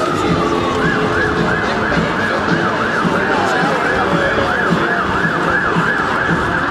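Emergency vehicle siren: a slow falling wail that switches about a second in to a fast yelp, sweeping up and down several times a second, over street noise.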